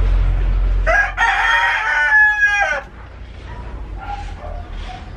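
A rooster crows once, about a second in: one long call of nearly two seconds.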